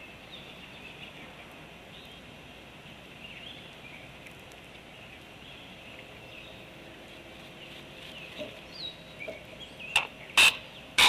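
Faint high bird chirps, then near the end a run of loud, sharp clacks, the sound of a juvenile bird arriving and clacking its bill.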